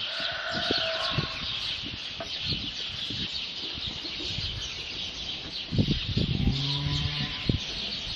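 A barn full of ewes and lambs: short, higher bleats from lambs in the first second, then a lower, longer ewe bleat near the end, over a steady high background chatter.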